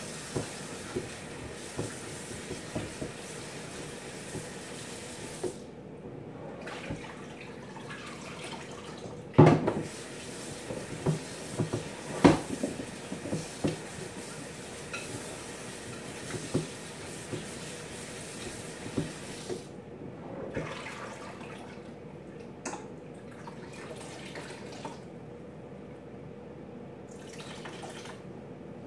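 Kitchen tap running water into a pot, shut off and turned back on a few times, with scattered knocks and clanks of pots and dishes, the loudest about nine and twelve seconds in.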